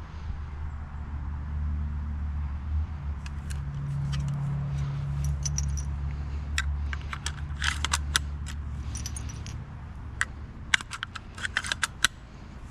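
Irregular sharp metallic clicks and rattles, thickening in the second half: handling of a Marlin 1895 lever-action rifle, with no shot fired. Under them is a steady low rumble that stops about three quarters of the way through.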